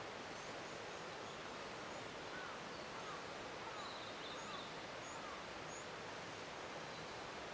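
Distant blue-and-white flycatcher singing: faint whistled notes, including a run of five short falling whistles two to four seconds in and a brief trill, over a steady background hiss.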